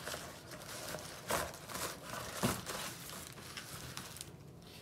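Brown paper bag and corrugated cardboard packing rustling and crinkling as a potted plant is lifted out, with a few louder crinkles in the middle.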